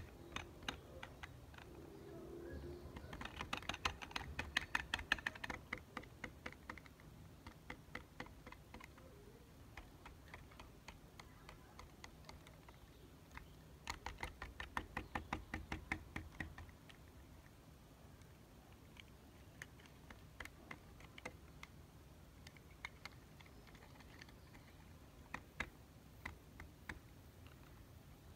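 Fingers tapping lightly on small metal tin-can toys: two quick runs of clicking taps, with scattered single taps between and after them.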